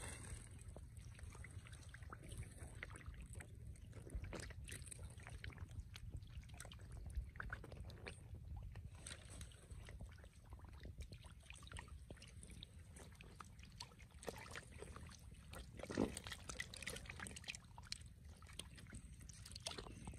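Faint splashing and sloshing of shallow muddy water as large fish wriggle and flop in it, with scattered small splashes and one louder splash about sixteen seconds in, over a low steady rumble.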